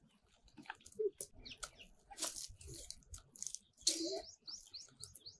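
Small birds chirping faintly, with a run of quick repeated chirps in the last second or so.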